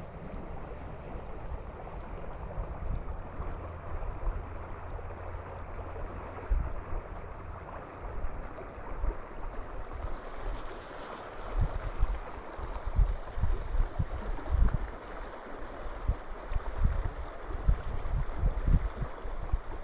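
Shallow mountain river rushing steadily over a rocky bed, with gusts of wind buffeting the microphone in low bumps, more often in the second half.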